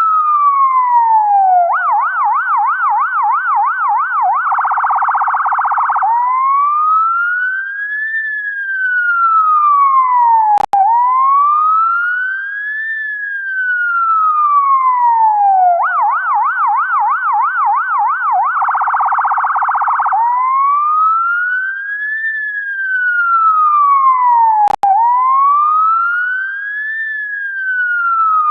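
UK ambulance siren cycling through its tones: a slow wail rising and falling, then a fast yelp of about three sweeps a second, then a very rapid warble, the whole pattern repeating about every fourteen seconds. Twice the sound drops out for an instant with a click at the bottom of a wail.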